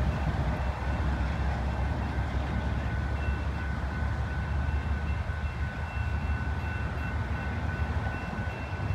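Loaded coal train rolling away with a steady low rumble. Above it a grade-crossing warning bell rings with a thin, steady high tone.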